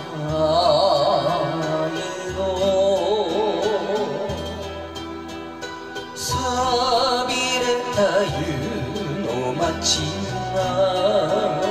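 Enka karaoke backing track playing its instrumental introduction: a wavering melody line over a bass that moves in separate held notes.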